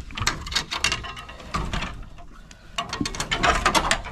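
Goats' hooves clattering and tapping on wooden boards as they step out of their pen. The taps come in clusters, with a denser run near the end.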